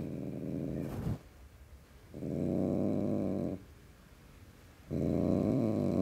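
Tom cat growling hard: three long, low growls, the first ending about a second in, the next from about two seconds to three and a half, the last starting about five seconds in.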